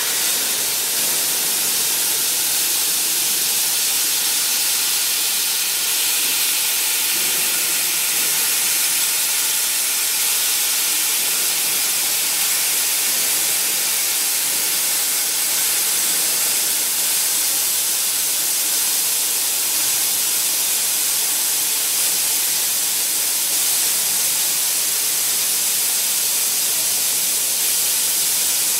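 6000 W fiber laser cutter slicing through 25 mm aluminium plate: a steady hiss of high-pressure assist gas jetting from the cutting nozzle into the kerf.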